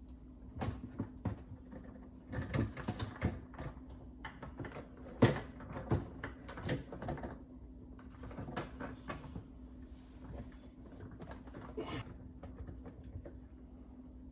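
Dishwasher parts being fitted back into the tub: irregular clicks, knocks and scrapes as a component is manoeuvred into place, with one sharp knock about five seconds in.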